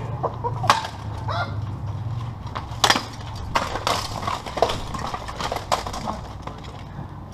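Steel weapons striking plate armour and armour clanking as two armoured fighters trade blows and grapple: a series of irregular sharp metallic clanks, the loudest about three seconds in.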